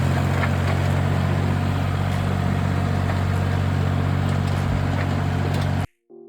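Diesel tractor engine running steadily at an even speed, cutting off abruptly near the end.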